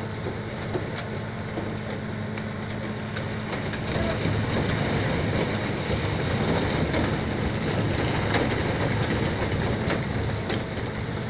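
Seawater and live mackerel spattering steadily in a brail net being hoisted aboard, sounding like heavy rain and getting louder about four seconds in, over a low engine hum.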